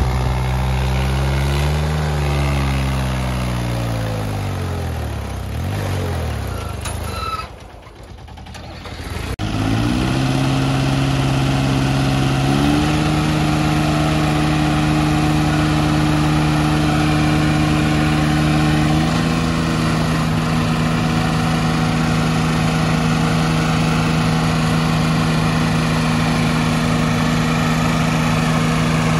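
Small diesel mini-tractor engines. First they are revved up and down, then they die away briefly. After that they run hard at a steady high throttle while pulling against each other under load, with the pitch shifting in two steps.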